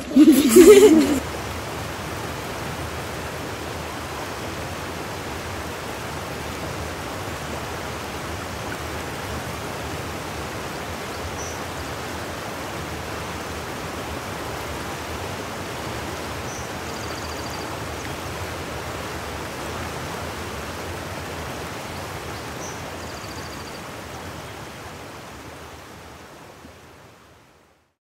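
Steady rushing of flowing water with a few faint high chirps, fading out over the last few seconds.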